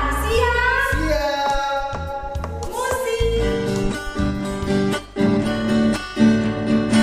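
Worship music: singing over the first three seconds or so, then acoustic guitar strumming a steady rhythm.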